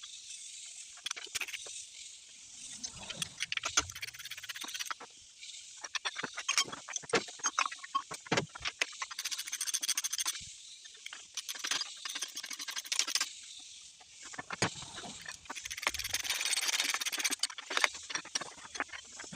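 Hand tools working on engine parts: scattered metallic clicks and knocks, with runs of rapid clicking like a ratchet. Under them runs a steady high buzz from outdoor insects and birds, swelling near the end.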